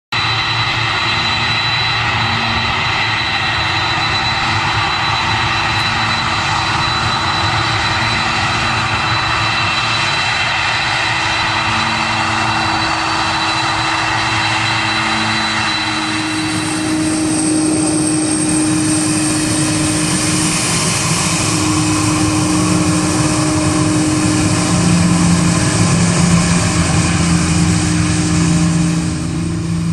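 Boeing 747-400 jet engines running, a steady rushing noise with a high whine. About halfway through the sound changes and grows louder and fuller, peaking near the end.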